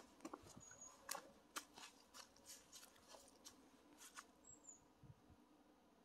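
Faint footsteps crunching through dry fallen leaves on a woodland path: irregular crackles, about two a second, that thin out over the last couple of seconds. Two brief high chirps sound, one near the start and one about four seconds in.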